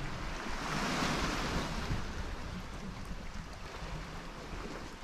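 Sea surf washing on the shore: a hiss that swells about half a second in and slowly dies away, with wind rumbling on the microphone.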